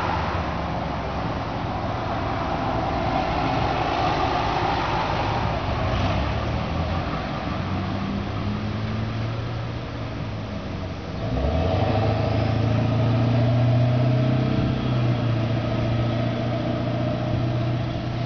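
Car engine idling steadily, its hum growing louder about eleven seconds in.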